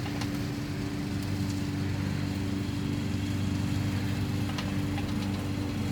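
Steady low machine hum, with a few faint clicks of small parts being handled.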